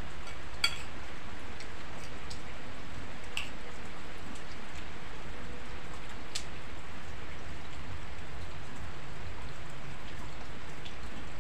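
Steady rain falling, an even hiss without a break, with a few light clicks here and there.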